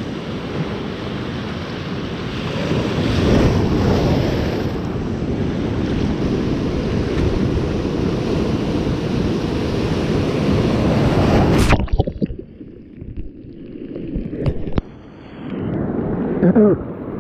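Heavy sea waves surging and washing over a rocky seawall, a continuous rush of surf loudest about three to four seconds in. The surf cuts off sharply about twelve seconds in, leaving a much quieter stretch with a few clicks.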